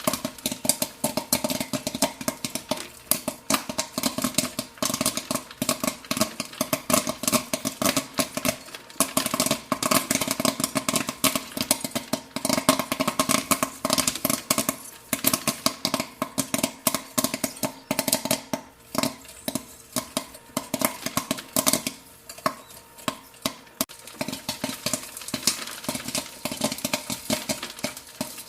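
Popcorn kernels popping rapidly and irregularly, a dense stream of sharp pops. A steady hum sits underneath and fades about two-thirds of the way through.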